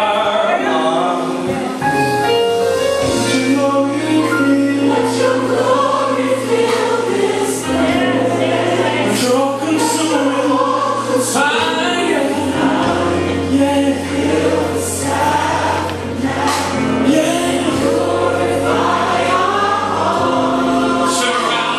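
Gospel worship song with a choir singing over long held bass notes.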